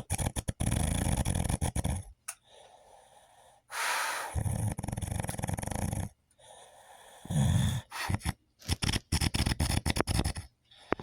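A man snoring loudly, with three long fluttering snores at intervals and breaths drawn in between, then a run of short, choppy sounds near the end.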